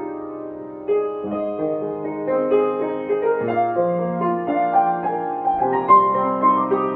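Solo piano playing a melodic passage of held, overlapping notes, with a new, louder phrase coming in about a second in.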